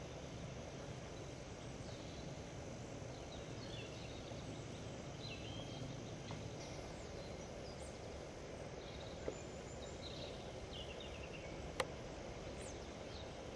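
Forest ambience: a steady low background hiss with scattered short chirps of small birds. Two sharp clicks stand out, one after about nine seconds and a louder one shortly before the end.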